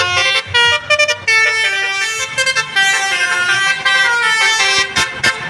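A bus's basuri melody horn playing a tune of quick stepping notes, with a few sharp clicks near the end.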